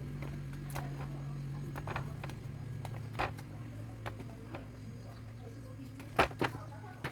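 Orange sorting machine running with a steady low motor hum that weakens after a couple of seconds, with a few sharp knocks of fruit bumping, the loudest about six seconds in.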